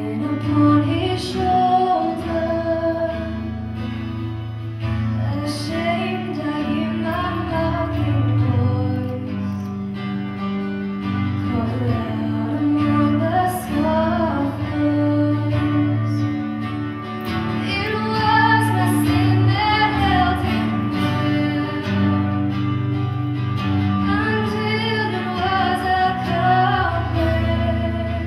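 A woman singing a slow worship hymn at a microphone, accompanied by a strummed acoustic guitar.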